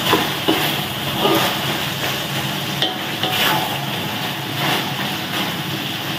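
Chicken-and-vegetable stir-fry sizzling in a metal wok while a wooden spatula stirs it, scraping along the pan with a few short clacks.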